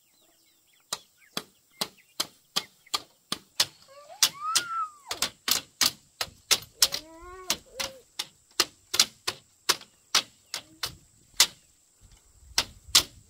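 Rapid, steady strikes of a tool on bamboo, about three sharp knocks a second, with a brief pause near the end. A short high call rises and falls about four seconds in.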